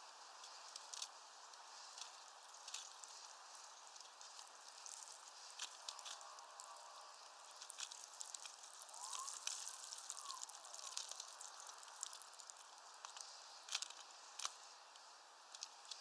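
Faint, irregular sharp taps and clicks over a soft steady hiss: a great tit pecking at peanuts in a mesh feeder.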